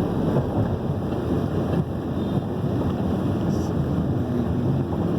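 Steady wind and road noise from a vehicle moving at speed, with wind buffeting the microphone.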